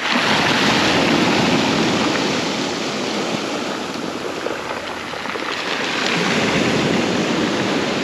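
Small waves breaking and washing up a pebble beach, the foam hissing: light surf of a sea settling after a storm. The surf swells twice, about a second in and again around six seconds in.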